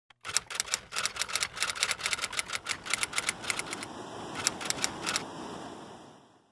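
Typewriter keys striking in quick, uneven runs, stopping about five seconds in. A hiss under the keystrokes fades away after they stop.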